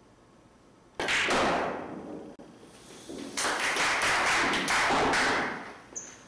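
Pool balls struck and clacking on a pocket-billiards table: a sharp crack about a second in that fades over about a second. Then a longer run of quick clacks and rattling from about three to five and a half seconds in.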